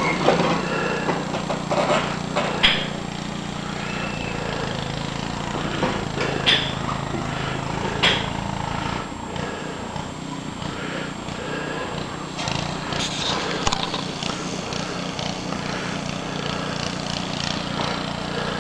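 A small engine running steadily, its drone shifting about halfway through, with faint distant voices and a few sharp knocks or scrapes.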